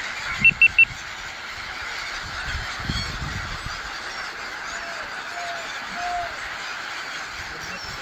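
A large flock of gulls calling over water, a dense mix of overlapping squawks and cries. Three short high-pitched beeps sound in quick succession about half a second in.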